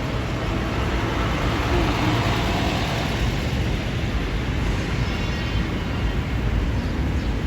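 City street traffic: a steady rumble of cars and buses, with one vehicle passing louder about two to three seconds in.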